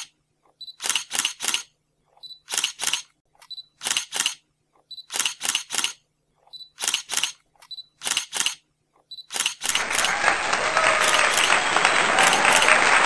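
Camera shutter clicks in quick groups of two or three, about one group every second and a half. About three-quarters of the way through, steady applause starts and takes over.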